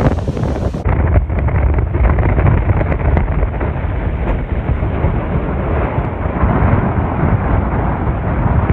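Strong storm wind blasting across a phone's microphone, a loud, rumbling buffet that never lets up. About a second in, the sound turns duller and goes on as the same heavy wind noise.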